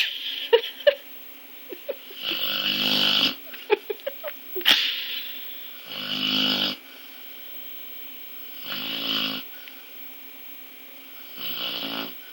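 A dog snoring in its sleep: four drawn-out snores, about one every three seconds, each fainter than the last. A few light clicks come between them in the first few seconds.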